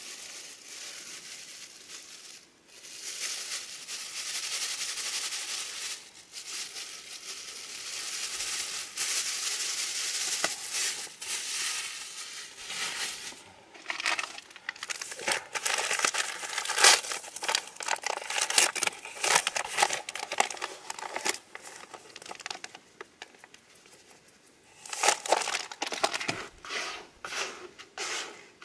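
Plastic bag crinkling and rustling as flour is shaken out of it into a plastic bucket of chick feed. Later come many sharp crackles and ticks as more bag handling goes on and hands stir the dry flour and feed in the bucket.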